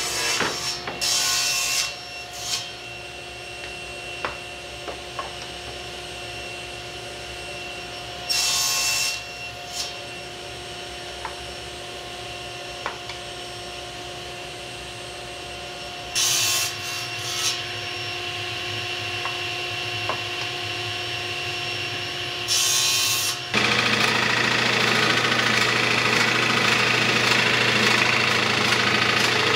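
Table saw running with several short, louder bursts as boards are fed through the blade. For the last several seconds, a drill press bores into wood with a large Forstner bit, a louder continuous cutting sound.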